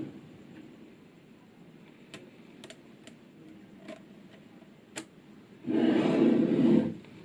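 Small magnetic balls clicking together a handful of times as they are set in place, then a louder rush of sound lasting about a second near the end.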